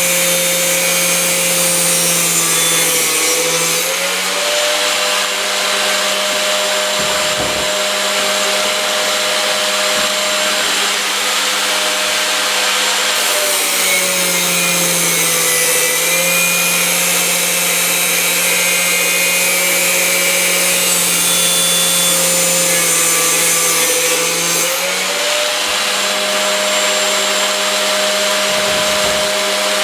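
125 mm angle grinder mounted in a cut-off stand, running continuously as it cuts through chrome-plated metal tubing. Its motor pitch sags briefly three times and then recovers.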